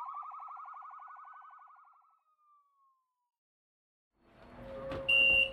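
Police siren, a fast warble with a slower rising and falling wail over it, fading away within about two seconds. After a short silence the hum of a bus interior rises, and near the end a loud, high electronic beep sounds once, typical of a bus door warning.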